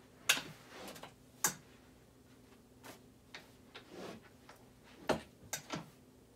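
A person handling an exercise weight bench while getting up off the floor: a handful of scattered sharp knocks and clicks, the loudest just after the start, about a second and a half in, and about five seconds in.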